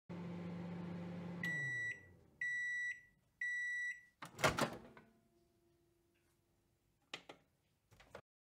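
Microwave oven running with a steady low hum that winds down as it finishes, then three high end-of-cycle beeps. A brief loud clunk follows, then a few small clicks near the end.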